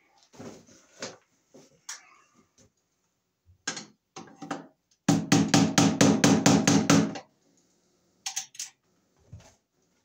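Rapid hammer blows on a steel breaker panel enclosure: a run of about ten sharp strikes, roughly five a second, about halfway through, after a few scattered lighter knocks.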